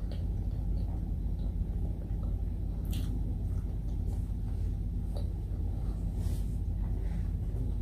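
Quiet chewing and mouth sounds from eating by hand, with a few faint short clicks and smacks, over a steady low rumble that is the loudest sound throughout.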